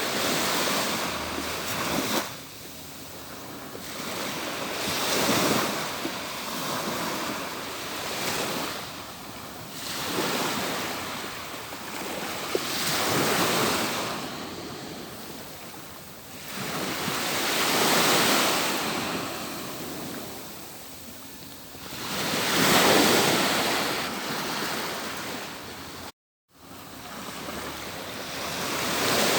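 Atlantic surf: waves breaking and washing up the beach, each surge of white noise swelling and fading every few seconds. The sound cuts out completely for a moment near the end.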